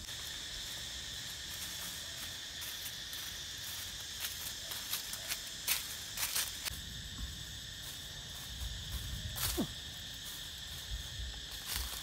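A steady high insect chorus, a layered buzzing drone. Scattered sharp clicks and snaps break through it, the loudest about halfway and about three-quarters of the way in.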